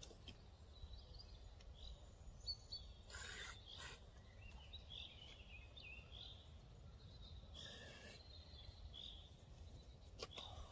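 Faint woodland ambience: small birds chirping here and there over a low steady rumble, with a few brief rustles about three seconds in, near eight seconds and near the end.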